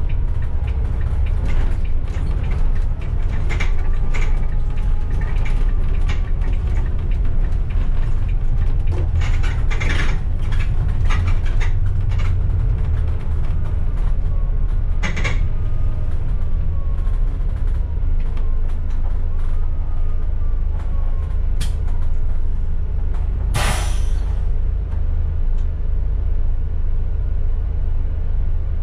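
Bus running in city traffic, heard from inside at the front: a steady low engine and road rumble with frequent rattles and creaks from the body and fittings. A short loud hiss of air comes near the end.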